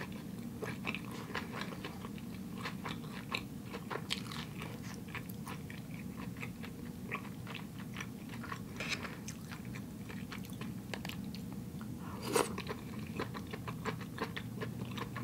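Close-miked chewing of a mouthful of sushi, with many small, irregular wet clicks and crunches and a slightly louder one about twelve seconds in, over a steady low hum.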